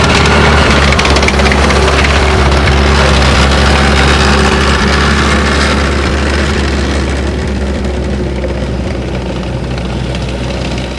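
Wartime Volkswagen military car's air-cooled flat-four engine running loud and steady, slowly getting quieter.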